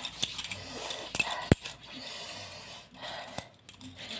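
Hands rubbing cream into the skin of the face and arms, with bangles clinking on the wrists and a sharp knock about a second and a half in.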